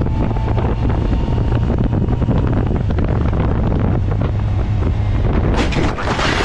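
Wind rumbling and buffeting on a motorcycle rider's camera microphone while riding, a steady low drone with a rushing hiss over it. About five and a half seconds in a brighter, harsher hiss comes in.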